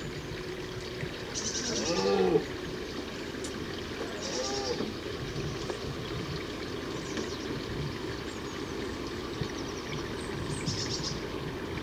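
Red deer stag roaring far off, picked up through a parabolic microphone: a loud rutting roar about a second and a half in and a fainter one around four seconds, over a steady background hiss. Short high pulsed chirps come and go.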